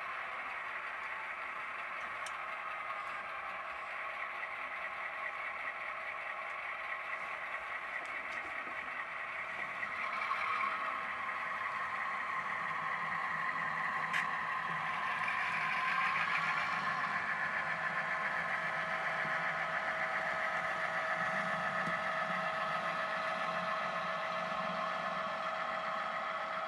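Model railroad diesel locomotives running along the track, a steady engine sound that grows louder about ten seconds in and peaks as they pass close by, with a few faint clicks.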